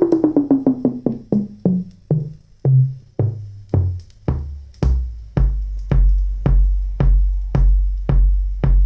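Electronic music: a drum hit repeats quickly and slows down as its pitch falls, settling about halfway through into a steady deep kick-drum beat about twice a second.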